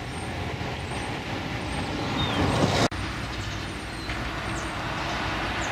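Street traffic noise with a steady low rumble. A passing vehicle's tyre noise swells to a peak a little under three seconds in, then stops abruptly.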